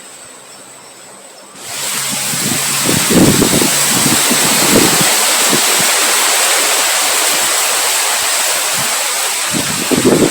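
Heavy rain coming in abruptly about two seconds in as a loud, steady rush, with irregular low gusts of wind underneath.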